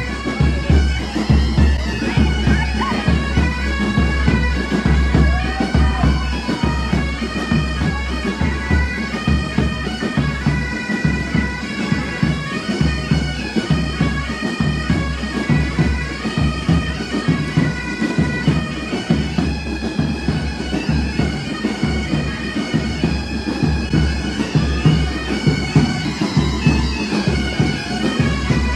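Pipe band playing a march: massed bagpipes with a steady drone under a stepping melody, and drums beating time.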